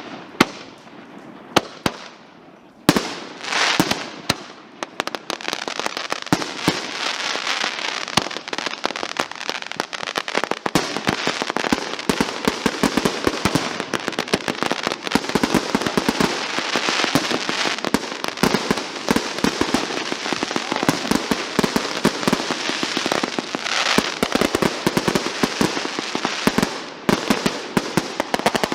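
Fireworks going off: a few separate loud bangs in the first seconds, then from about five seconds in a dense, continuous crackle of rapid pops.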